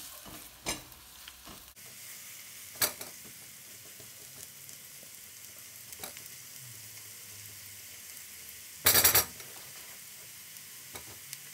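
Chopped onion sizzling in ghee in a wok as it softens, stirred with a silicone spatula, with a few short scrapes and one brief, louder scraping clatter about nine seconds in.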